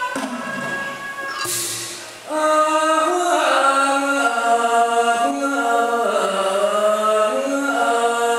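Thai likay folk-theatre music: instrumental accompaniment plays alone at first. A little over two seconds in, a performer's voice comes in loudly over it through a stage microphone, singing a sung passage with long, sliding notes.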